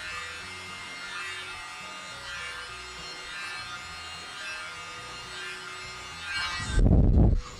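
Handheld electric mini blower running with a steady high whine as it blows wet acrylic paint outward across a tile, over background music. Near the end the whine stops and a loud, low rumble lasts under a second.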